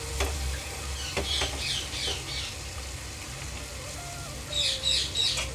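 A wooden spatula stirs bitter gourd and onion frying in a kadhai, with a few knocks near the start. A bird chirps in quick runs, loudest near the end.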